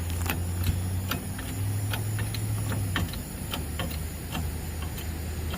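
Irregular light metallic clicks and ticks from a truck bed crane and its jack being worked, over a steady low hum that rises slightly about a second and a half in.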